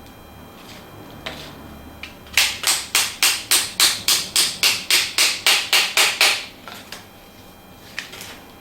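A washing machine door handle's shaft being tapped into place: a run of about sixteen quick, even taps at roughly four a second, starting a couple of seconds in, with a few lighter clicks of the plastic parts before and after.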